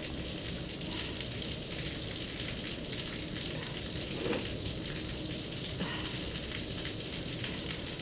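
Heavy rain falling on pavement in a thunderstorm, a steady hiss with a few sharper ticks.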